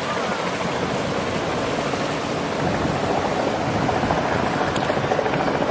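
Motor yacht engines running, a low throbbing rumble over a steady rush of water and wind. The throb grows more pronounced about halfway through.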